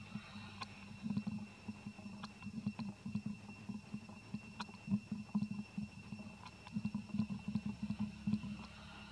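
Baby macaque suckling at its mother's nipple: soft, wet, low sucking and swallowing sounds in irregular bunches of quick pulses, over a faint steady high whine.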